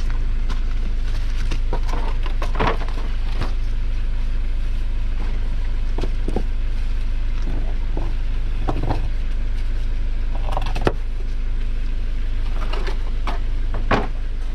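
An off-road vehicle idling steadily in a low rumble, with scattered knocks and clatters, typical of wooden boards and rocks being set under a tyre to build a ramp.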